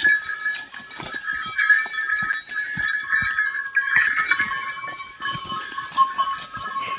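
Bells on fighting bulls ringing and jangling steadily as the animals shove each other, with scattered short knocks and scuffs from their struggle.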